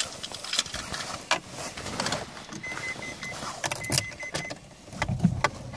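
Clicks and knocks of handling inside a 1999 Renault Mégane's cabin as the ignition is switched on, with two short runs of high electronic beeps from the car around the middle and a dull thump near the end. The engine is not yet running.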